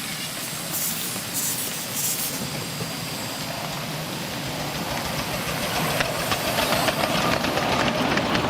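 Miniature steam locomotive on a passenger-carrying track, with three short steam hisses in the first two seconds, then rapid exhaust beats and wheel noise growing louder through the second half as it draws near.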